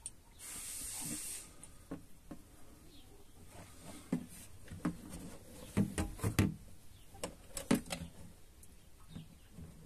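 Transmission-hydraulic oil being poured from a plastic jerry can into a tractor's filler: a short hiss about half a second in, then irregular hollow glugs and knocks from the can, thickest between about four and eight seconds in.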